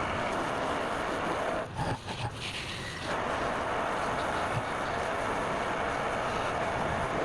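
Wood lathe running, a tool cutting the spinning workpiece with a steady whirring hiss over the motor's hum. The sound dips briefly a little under two seconds in and picks up again about a second later.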